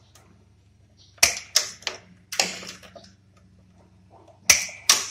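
Hand wire stripper pliers cutting and stripping the insulation of electrical cable wires: sharp snips and clicks, four close together about a second in and two more near the end.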